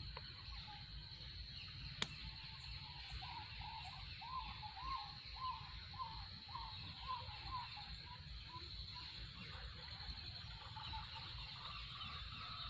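A bird calls a run of about ten short rising-and-falling notes a few seconds in, then fainter ones, over a steady high-pitched hum and a low rumble. There is one sharp click about two seconds in.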